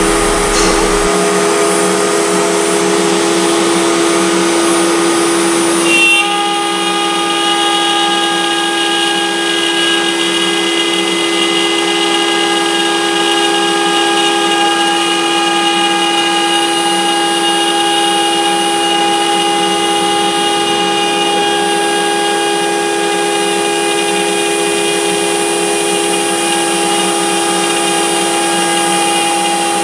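Router spindle on a CNC gantry running steadily with a high whine, milling a pocket into a laminated panel; its tone shifts abruptly about six seconds in.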